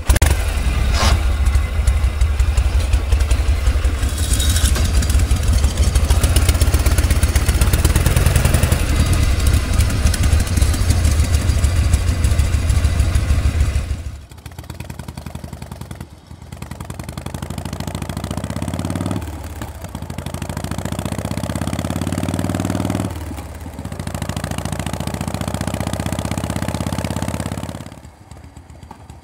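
Vintage Harley-Davidson V-twin starting first time and running loud and lumpy for about fourteen seconds. After a break the bike pulls away, its engine pitch rising and falling three times as it accelerates up through the gears.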